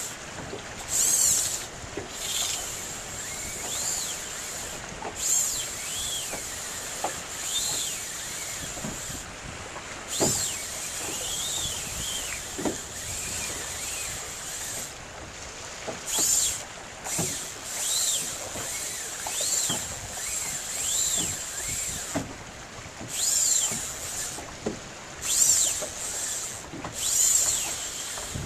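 Wind and choppy water around a small boat, with a whistling whir that rises and falls again every one to two seconds in time with surges of hiss.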